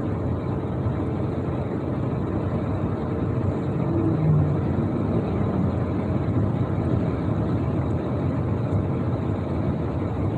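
Steady road noise inside the cabin of a Ford F-150 pickup cruising at highway speed: an even rumble of tyres and engine with no sudden events.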